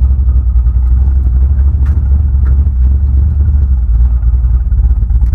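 A 1974 Chevy Nova with a freshly fitted 3.42 rear gear, driving with its engine still cold. It makes a loud, steady low rumble of engine and road noise, with no rise or fall in pitch.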